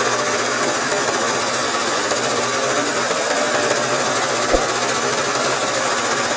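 Sewing machine running steadily at speed, stitching free-motion embroidery on hooped fabric. A single sharp click comes about four and a half seconds in.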